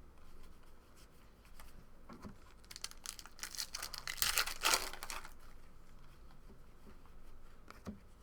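Trading cards and a pack wrapper being handled: rustling and crinkling, loudest from about two to five seconds in.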